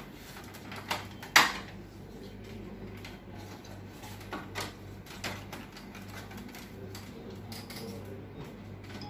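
Sharp plastic clicks and knocks from a laser printer's casing being handled and worked apart by hand and with a screwdriver. The loudest knock comes about a second and a half in, and all of it sits over a steady low hum.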